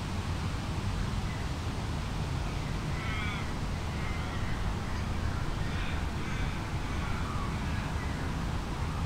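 A bird calling faintly a few times, with drawn-out calls falling in pitch about three seconds in and again between five and eight seconds, over a steady low rumble of wind.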